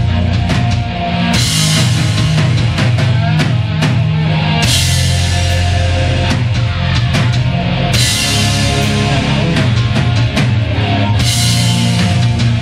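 Live rock band playing: drum kit, electric guitar and bass guitar, with crash cymbals hit about every three seconds over a heavy, steady low end.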